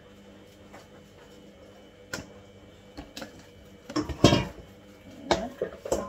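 Kitchen utensils and a blender jar being handled: scattered light clicks and knocks, with a louder clatter about four seconds in and a few more knocks near the end.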